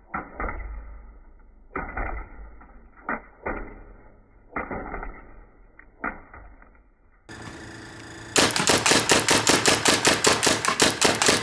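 Paintball gun firing at a plastic box fan: at first single, muffled shots and hits at uneven intervals, then a rapid string of shots, about eight a second, starting about eight seconds in.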